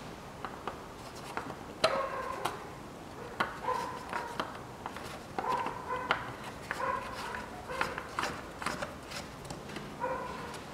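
A dog whining in short, repeated high whimpers, with a few light clicks from the oil filler cap being handled and screwed shut.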